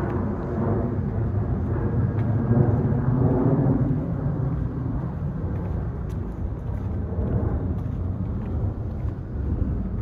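Steady low outdoor rumble, a little louder in the first four seconds.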